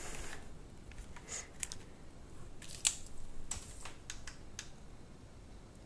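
About eight light clicks and taps spread over a few seconds, the clearest about three seconds in: hands handling a DJI Phantom 3 Professional drone and pressing its battery power button to switch it on.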